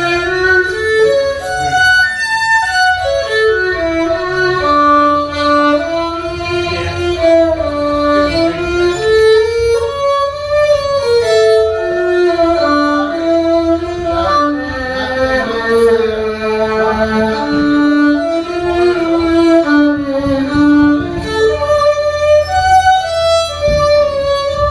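Amplified violin playing a solo melody of held and stepping notes during a sound check.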